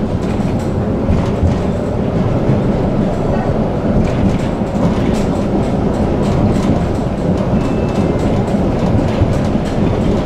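Tram running along the track, a steady rolling rumble with scattered light clicks from the wheels over the rails.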